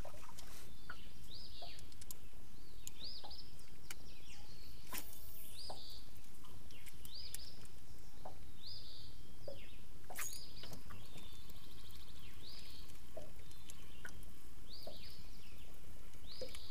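Birds calling again and again with short, high, down-slurred notes about once a second, over a steady low rumble of outdoor background noise, with a few sharp clicks scattered through.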